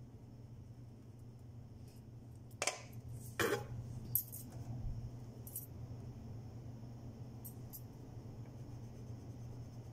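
Light clicks and taps of wax crayons being handled and set down on a paper-covered table, the two loudest close together about three seconds in and a few fainter ones after.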